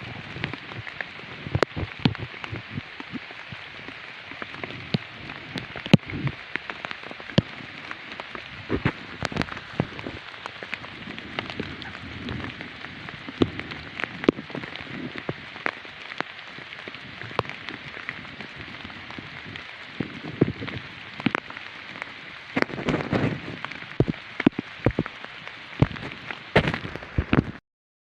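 Rain pattering steadily, with many irregular sharper drops ticking through it. It stops abruptly near the end.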